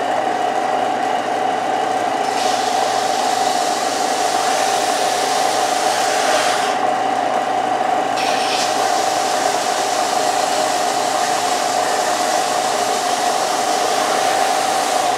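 Central Machinery 4-inch by 36-inch belt and disc sander running with a steady motor hum. From a couple of seconds in, a piece of wood is held to its 120-grit belt, adding a rasping hiss, with a short break a little past halfway.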